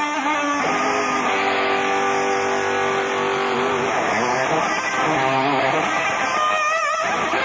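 Live electric guitar solo: sustained notes with wide vibrato and bends that glide up and down in pitch, over lower accompanying notes.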